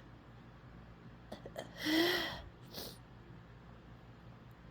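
A woman fighting off a sneeze. About two seconds in comes a breathy, half-voiced gasp, followed by a short, sharp breath; the sneeze does not come.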